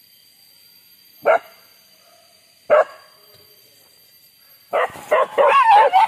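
Hunting dogs barking: two single sharp barks, then near the end a quick, excited run of barks that waver up and down in pitch.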